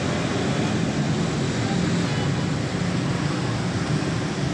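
Street traffic driving through floodwater: motorcycle rickshaw and motorbike engines running steadily, with water sloshing around the wheels.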